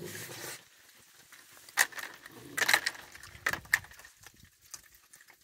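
Raccoons feeding from dishes of seed and kibble on a wooden deck: a brief rustle at the start, then a handful of scattered sharp clicks and crunches.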